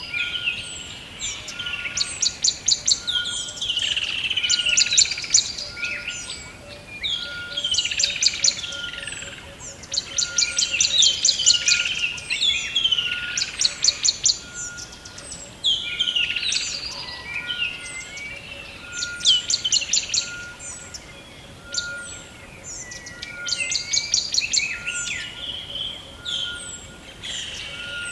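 Several songbirds singing in a forest chorus, with rapid trills and downward-sliding whistled notes in phrases every couple of seconds. Underneath runs a faint, steady pulsed note repeating about once a second.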